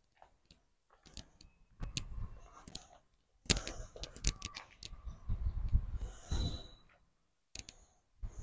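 Faint handling noise from a handheld camera being carried along: scattered clicks and knocks, with a few short bursts of low rumble.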